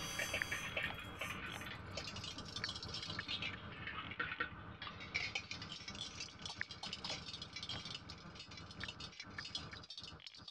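Electronic sound synthesized in Kyma: a dense crackle of tiny clicks and rattles. The highest clicks thin out about four seconds in, then come back thicker.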